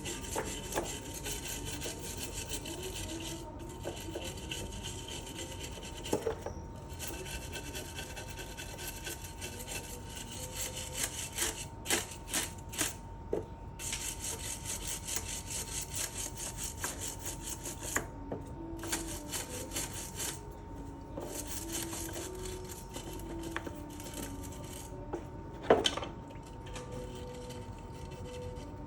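Rapid hand rubbing and scraping strokes, like sanding or filing, in runs of a few seconds with short pauses between them. Occasional knocks, one sharp and loud near the end.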